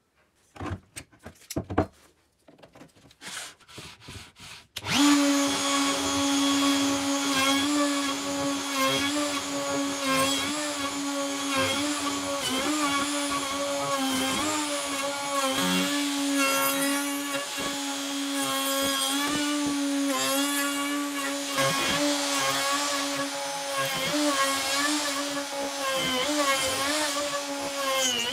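A few knocks and clicks, then about five seconds in a small power tool's motor starts and runs steadily at a constant pitch, with small wavers as its load changes.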